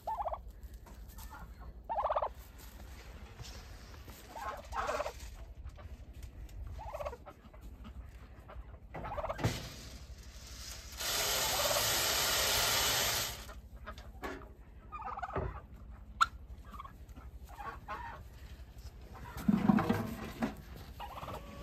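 Farm fowl calling in short separate calls every few seconds, with a steady rushing noise lasting about two seconds midway through.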